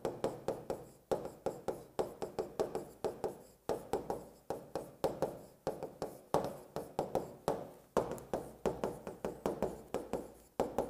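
Stylus writing on an interactive touchscreen display: quick irregular taps and scrapes of the pen tip on the glass, several a second, as handwriting is written out stroke by stroke.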